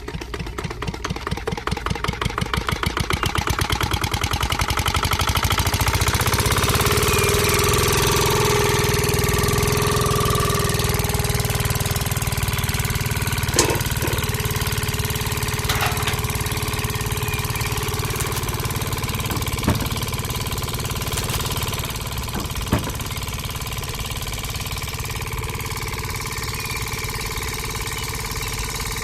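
Small engine of a DIY mini tractor starting up, its pulses quickening and growing louder over the first few seconds, then running steadily with a few sharp clicks.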